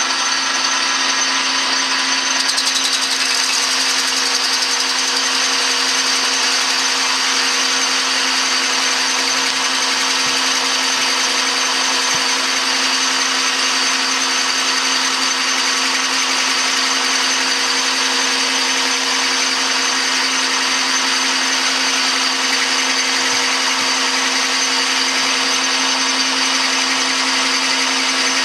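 Metal lathe running while a carbide insert takes a 60-thousandths-deep roughing cut along a round bar: a steady machine whine with the hiss of the cut throughout.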